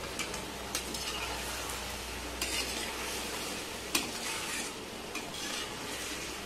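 Chicken livers sizzling in oil in a kadai while a perforated metal ladle stirs them. The ladle makes short scrapes and taps against the pan a few times over the steady frying hiss.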